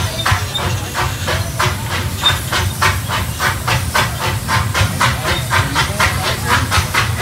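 Small ride-on steam locomotive chuffing steadily under way, its exhaust beats coming about three a second over the low rumble of the running train.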